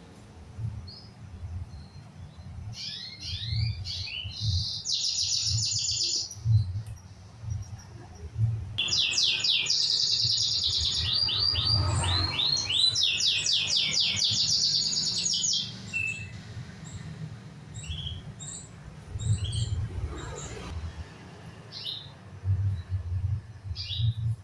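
Domestic canary singing: long runs of rapid trills and quick repeated rising notes for the first fifteen seconds or so, then scattered short chirps. An uneven low rumble runs underneath.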